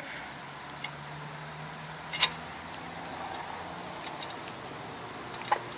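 Small metallic clicks and taps of carburetor parts and tools being handled, with one sharp click about two seconds in and another near the end, over a steady hiss of rain.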